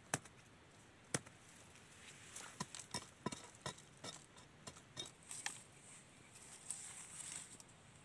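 A knife blade knocking and chopping at bamboo sticks: two sharp knocks in the first second or so, then a run of lighter taps and cracks, and leaves rustling near the end.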